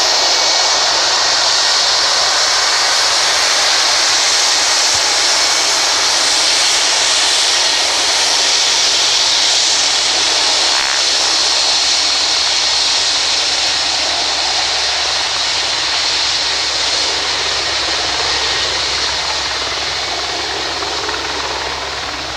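Jet airliner's engines running as it taxies past, a loud steady rush with a high whine, easing off a little over the last several seconds. The turbine and rotor of a hovering twin-engine helicopter are mixed in underneath.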